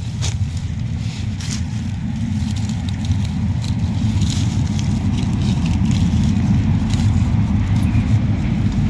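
A loud, steady low rumble that slowly grows louder, with a few short crackles of dry leaf litter being brushed by hand.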